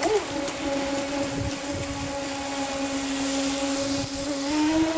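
Electric whine of an RC jet boat's brushless motor driving its water jet, mostly at a steady pitch, with a quick rise and fall at the start and a step up in pitch near the end. Rushing river water runs underneath.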